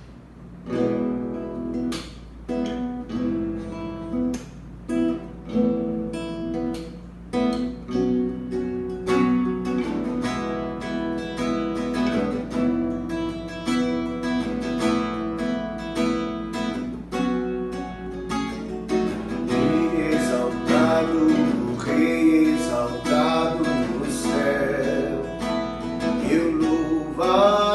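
Acoustic guitar strumming chords as the instrumental introduction of a worship song. A singing voice comes in over the last several seconds.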